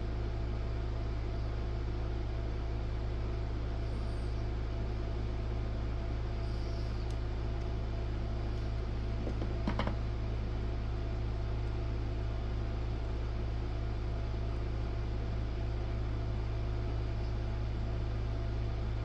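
Steady low machine hum with faint steady tones above it, and one faint click about ten seconds in.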